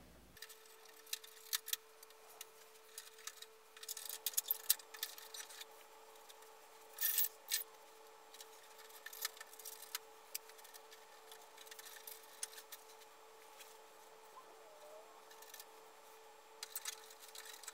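Hard plastic parts of a 1987 G.I. Joe Defiant launch gantry toy clicking and rubbing as they are handled and worked apart, with a louder short scrape about seven seconds in, over a faint steady hum.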